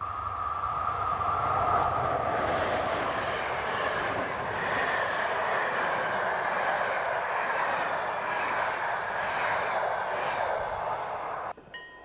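Passenger train hauled by an electric locomotive passing at speed, a steady rushing noise of wheels on rails. It cuts off suddenly near the end, and a faint chime begins.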